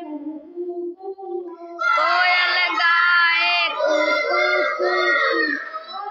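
A group of young children singing together with a woman. The singing gets louder and higher about two seconds in.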